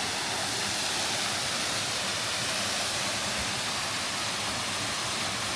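Waterfall with water pouring down over rock walls, heard as a steady, even rushing hiss with no breaks.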